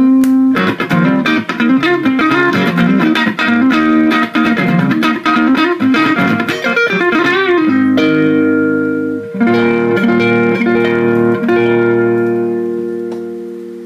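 Electric guitar played through the repaired Egnater Rebel-20 tube amp and its speaker cabinet: quick single-note lines with bends for about eight seconds, then a few chords left ringing and fading out.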